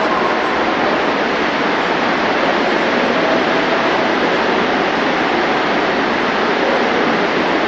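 A loud, steady rushing noise with no break or beat, a sound effect played over the theatre's speakers during a lighting change on stage.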